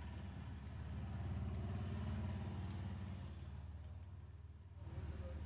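A motor vehicle's engine running in the street: a low rumble that swells about a second in and fades near the end. Light snips of barber's scissors trimming a beard sound over it.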